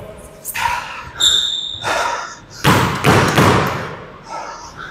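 Squash ball rally: several sharp impacts of the ball off racket strings and the court walls, each ringing briefly in the court. A squeak of a court shoe on the floor follows about a second in.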